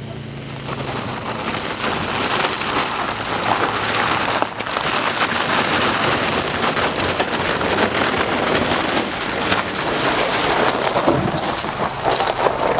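Off-road vehicle driving through mud and icy puddles: a dense, steady crackling of water, slush and mud spraying against the body and wheel wells, sounding like heavy rain.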